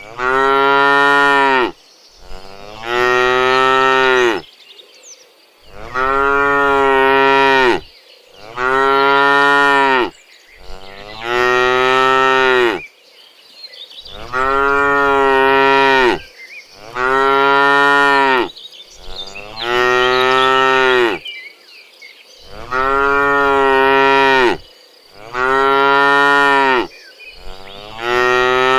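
Domestic cow mooing over and over. There are about eleven long, loud moos, each held steady for a second and a half to two seconds, one roughly every two and a half seconds.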